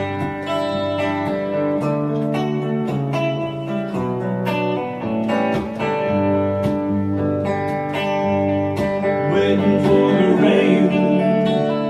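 Solo Telecaster-style electric guitar playing a steady run of picked chords and notes in a song's instrumental passage. A man's voice sings briefly into the microphone near the end.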